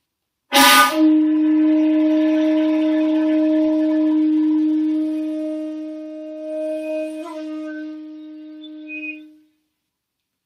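Bamboo shakuhachi flute playing one long, breathy held low note. It starts with a sharp burst of breath, slowly fades with a slight flick about seven seconds in, and stops about a second before the end.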